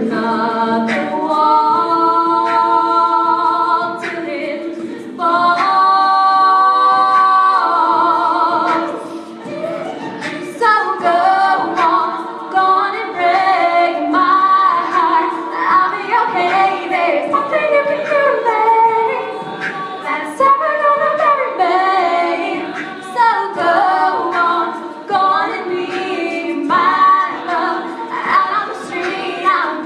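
All-female a cappella group singing in close harmony, with no instruments. Two long held chords come first, then a quicker-moving passage from about nine seconds in.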